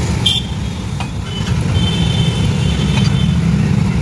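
Steady low rumble of a motor vehicle engine running. A few short clicks sound over it, and a thin high whine comes in about a second and a half in and lasts nearly two seconds.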